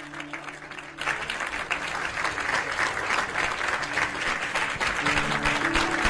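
Studio audience applauding. The clapping breaks in suddenly about a second in, over sustained musical notes that fade and then return near the end.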